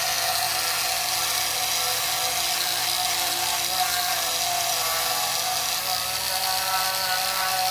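Dremel rotary tool running at high speed with an abrasive tip pressed against a metal exhaust tip, grinding off paint: a steady high whine over a hissing grind.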